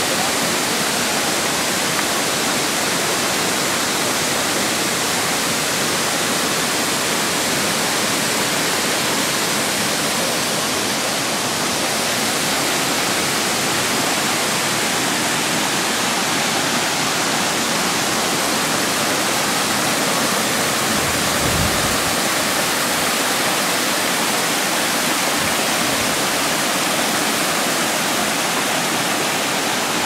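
Steady rushing of a multi-tiered waterfall pouring over rock ledges into pools, with one brief low thump about two-thirds of the way in.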